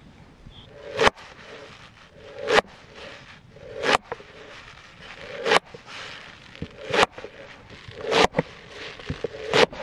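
A hinged lever knife, its blade bolted at the tip to a wooden cutting board, chopping a bunch of fresh green stalks and leaves. Seven slow strokes, about one every second and a half, each a short crunch through the stalks ending in a sharp knock of the blade on the board.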